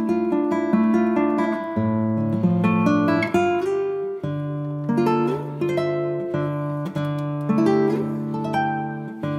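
Background music of plucked acoustic guitar, playing a steady run of notes.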